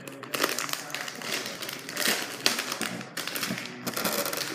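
Candy wrapper crinkling and crackling as hands work at the packet: a dense run of quick, irregular clicks.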